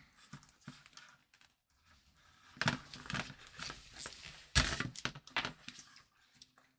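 Crinkling and crackling of electrical tape and parts being handled on a workbench, busiest in the middle, with a sharp knock about four and a half seconds in.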